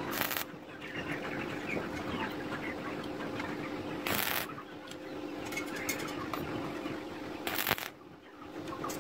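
Stick (arc) welding tack welds on steel rods: three brief bursts of arc hiss, just after the start, about four seconds in and near the end, each under half a second, over a steady low hum.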